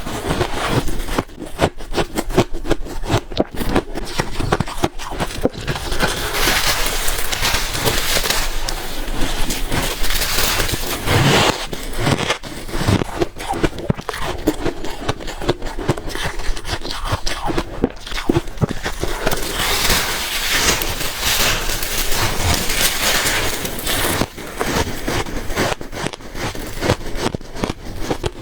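Close-up biting and chewing of freezer ice: a dense, continuous run of crisp crunches and crackles as the ice cracks between the teeth.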